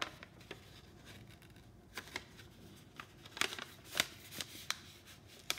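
A folded sheet of coloured paper being handled and bent into a cone, giving irregular crisp crackles and snaps, most of them in the second half.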